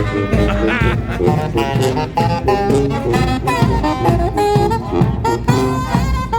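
Live street band playing an upbeat, lively instrumental tune with held wind-instrument notes over a bass line and a steady drum beat.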